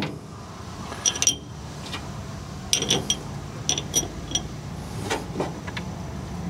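Metal hand tools and small steel parts clinking and tapping against each other: a string of sharp, irregularly spaced metallic clinks, the loudest a little over a second in.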